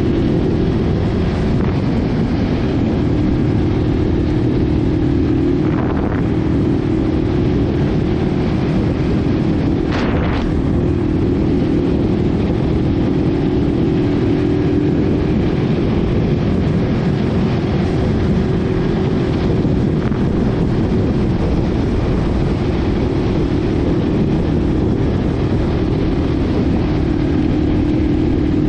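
Yamaha TW200's 196cc single-cylinder four-stroke engine running at a steady cruising speed on a dirt trail, with wind buffeting the camera microphone. A couple of brief knocks, the clearest about ten seconds in.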